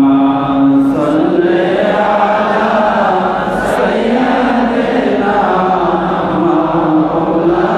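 A man's voice chanting Arabic in a slow, drawn-out melodic style through a microphone and loudspeakers, holding long notes that glide up and down.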